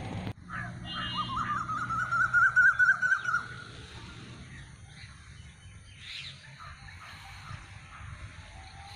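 A bird calling: one long, warbling call that rises slightly, starting about a second in and lasting about two seconds, followed by a few fainter chirps.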